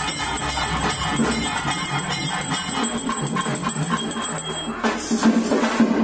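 Music with jingling bells and hand percussion keeping a steady rhythm; the high ringing of the bells stops about five seconds in.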